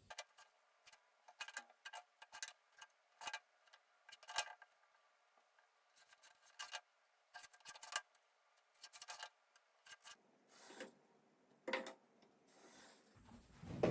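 A hand tool working wood in short, irregular scraping strokes, some in quick runs, with a pause about ten seconds in.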